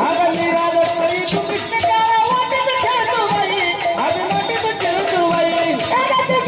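Marathi jagaran-gondhal folk music: a woman singing a gaulan over a steady hand drum and jingling percussion.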